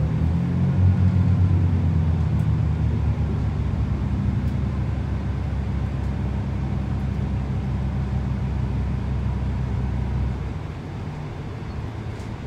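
Underfloor Perkins diesel engine of a Class 165 Networker Turbo diesel multiple unit working under power, heard from inside the carriage as a loud, steady low drone. About ten seconds in it throttles back and the drone drops away to a quieter running rumble.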